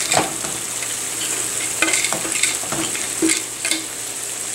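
Fried cauliflower florets being scraped from a steel bowl with a wooden spatula into a wok of sizzling sauce and capsicum. A steady sizzle runs underneath about seven short scrapes and knocks.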